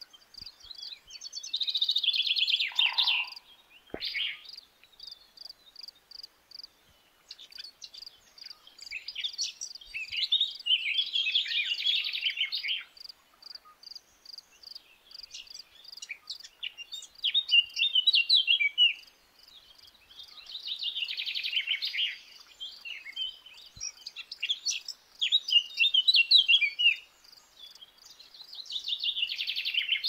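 Songbirds singing at dusk in repeated phrases of a few seconds each, over a steady, even train of cricket chirps.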